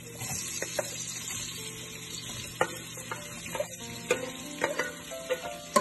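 Chopped onions, snap peas and chilli sizzling as they are spooned into hot canola oil in a non-stick frying pan. A spoon clicks against the plate and pan several times, mostly in the second half.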